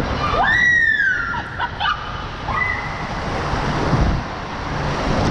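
Steady rushing, splashing water of an indoor water park, with a high-pitched squeal that rises and falls about half a second in. The sound cuts off abruptly at the end.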